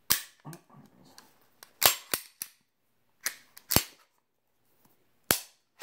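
Sharp metal clacks of a Beretta 92-series pistol slide, from a 92FS Inox, being fitted onto an M9A3 frame and worked on its rails. There are about six to eight clacks at uneven gaps.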